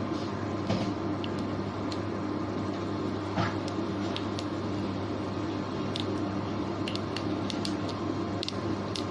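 Mustard seeds crackling in hot oil: scattered sharp pops, more frequent in the second half, over a steady hum.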